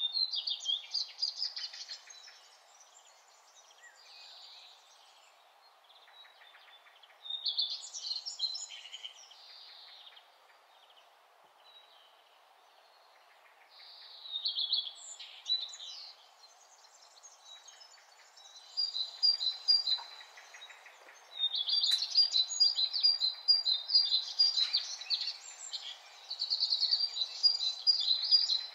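Small songbirds chirping and trilling in bursts, busiest in the second half, over a faint steady background hiss.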